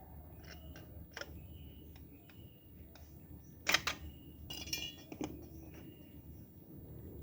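Scattered light clicks and clinks, loudest in a cluster past the middle, with a few short high chirps and a low hum in the background.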